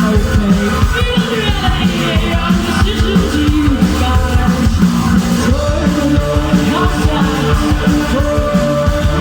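A band playing loud live rock music, with a steady driving beat.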